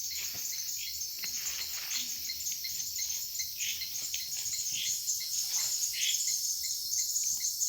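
A steady high-pitched chorus of night insects, with a fast pulsing shimmer. A few faint rustles and taps sound under it.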